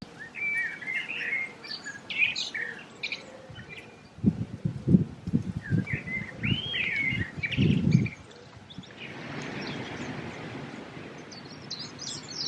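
Wild songbirds chirping and singing, with quick sliding notes throughout. A run of low thuds comes from about four to eight seconds in, and a soft steady hiss follows near the end.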